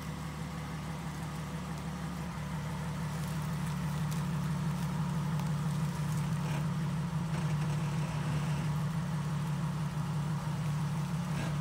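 SUV engine idling steadily at low revs as the vehicle crawls slowly over a rutted dirt trail, growing slightly louder a few seconds in.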